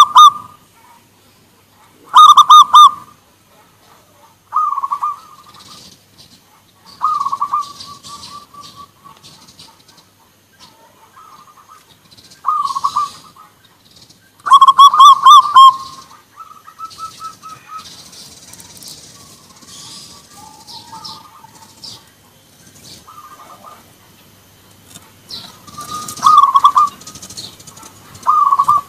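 Zebra doves cooing back and forth: repeated short bursts of quick, rippling staccato coos every few seconds, some loud and others fainter, with faint high chirps in between.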